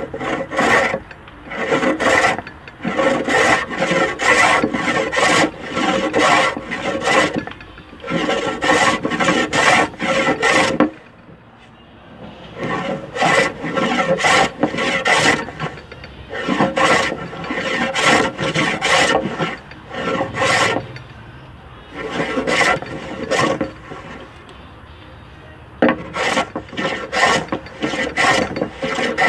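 Hand plane shaving a wooden boat keel in short, rasping strokes, about two a second, in runs broken by short pauses.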